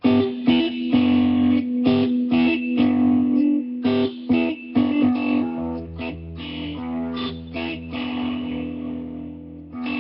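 Crook Custom Telecaster electric guitar playing a blues riff in E: picked notes and double-stops on the G and B strings repeating a short motif. A deeper note rings underneath from about halfway.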